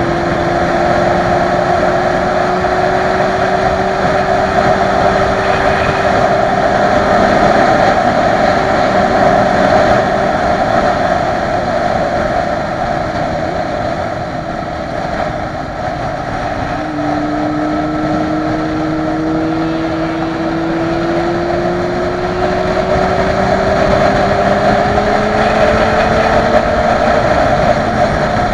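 Motorcycle engine under way, its pitch rising slowly as it pulls. A little past the middle the pitch drops, as at a gear change, then climbs again. Wind and road rush run underneath.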